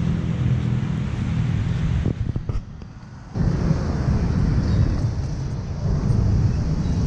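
Street traffic: cars driving past close by with a steady low rumble. The sound drops away for about a second, two seconds in, then comes back.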